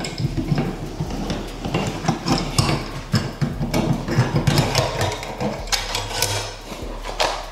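Steel fish tape being fed off its reel and pushed up through an outlet box knockout into the wall cavity: a fast, irregular clatter of clicks, rattles and scrapes.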